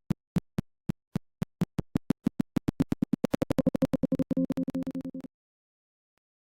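Synthesized sound effect: short pitched ticks that speed up steadily until they run together into a continuous buzzing tone, then cut off suddenly about five seconds in.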